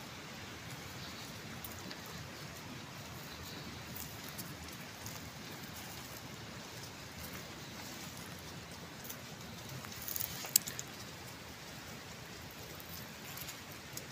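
Steady outdoor hiss with scattered light clicks and rustles, and one sharp click about ten and a half seconds in.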